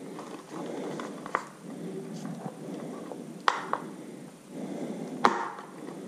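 Plastic clicking and rubbing as a wiring connector is pushed and worked into the socket on the back of a hardwired smoke detector, with three sharp clicks: at about one and a half seconds, three and a half seconds, and just past five seconds.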